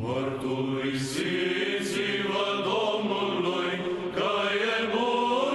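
Sung chant playing as intro music: voices holding long, steady notes that shift pitch every second or two.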